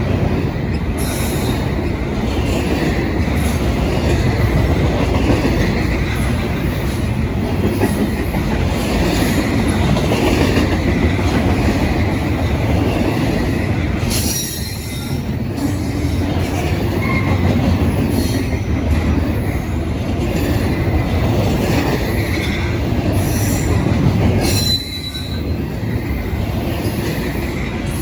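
Norfolk Southern freight train's cars rolling past close by: a steady rumble of steel wheels on rail. Brief high-pitched wheel squeals come about halfway through and again near the end.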